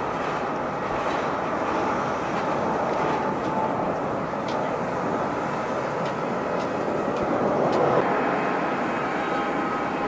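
Jet airliner engines running: a steady rushing drone that swells slightly about eight seconds in, with a thin whining tone coming through near the end.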